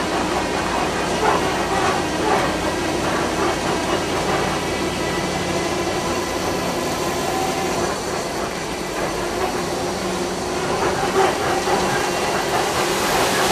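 Safari truck's engine running steadily as it drives along a dirt track, heard from inside the vehicle.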